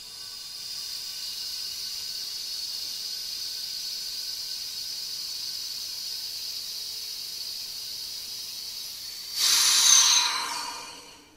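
Air hissing through a partly opened brass valve into a pressure-cooker vacuum chamber, a steady hiss with a thin whistle in it. About nine seconds in the valve is opened further and it becomes a much louder rush that fades away as the chamber comes back up to atmospheric pressure.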